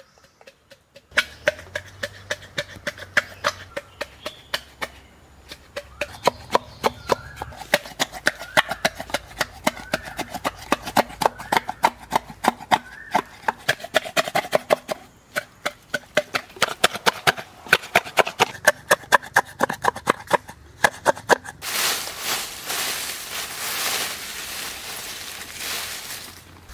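Rapid series of sharp knocks and taps on green bamboo, each with a short ring, about two a second at first and then faster. About 22 seconds in they give way to a crackling rustle of dry leaves being gathered by hand.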